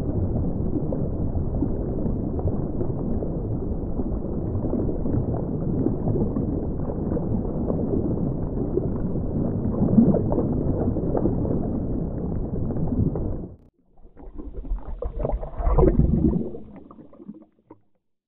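Underwater water sound effect: a steady, muffled rush of churning water and bubbles that cuts off suddenly about two-thirds of the way through. It is followed by a few seconds of louder, irregular bubbling gurgles that fade, with a moment of silence at the very end.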